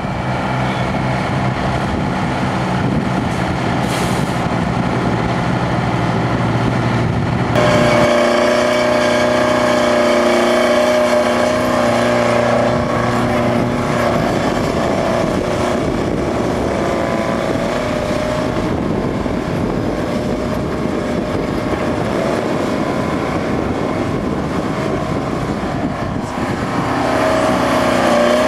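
Bucyrus-Erie 20-H excavator's Detroit Diesel 4-71 two-stroke engine running steadily as the machine digs and loads. About seven to eight seconds in its note changes abruptly to a higher, slightly louder running pitch.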